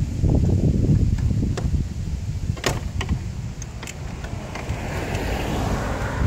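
A low, steady rumble with a few sharp clicks as an adjustable wrench is worked on the plastic oil filter housing cap of a 2.2 Ecotec engine. A hiss swells near the end.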